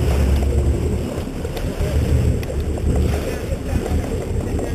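Wind buffeting the microphone over the low rumble of a boat and the wash of the sea.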